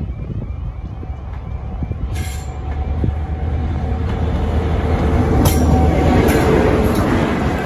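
Class 43 HST power cars 43155 and 43154 approaching and passing with their diesel engines running, a steady hum that grows louder until about six seconds in. A few sharp clicks of wheels over rail joints come in over it.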